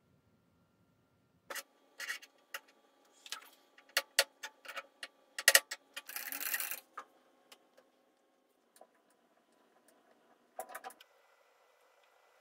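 Metal-on-metal clicks and knocks from a steel workpiece and machine vise being handled on a milling machine table, loudest about halfway through, followed by a short scraping rasp. A few scattered ticks and one more knock come near the end.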